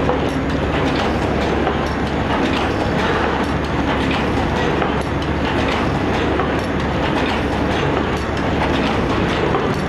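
Single-PE paper cup forming machine running, a steady mechanical clatter with a regular clicking rhythm.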